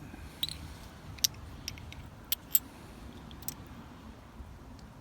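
Light metallic clicks and clinks, about six scattered over a few seconds, as small metal parts (spark plugs and a gap gauge) are handled, over a faint low hum.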